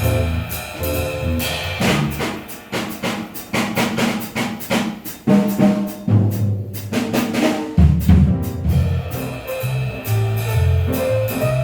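Jazz trio of piano, bass and drum kit playing a swing tune, with the drums prominent and busy with snare and bass-drum hits through the middle.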